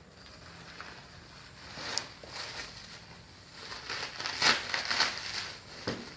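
Packaging being handled and unwrapped: irregular crinkling and crackling, with a sharp click about two seconds in and the loudest crinkling between about four and five seconds in.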